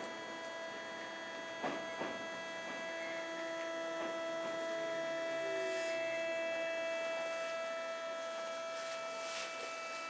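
Thyristor armature chopper of a Tokyo Metro 8000 series train (Mitsubishi-built) heard from directly above the unit, giving off a steady whine of several fixed high tones. Two short knocks come about two seconds in.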